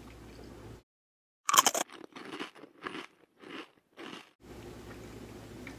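A bite into a chocolate-glazed mint cookie donut: one loud crunch about a second and a half in, then about five quieter chewing sounds. The room's background hum drops out during the bite and chewing and comes back near the end.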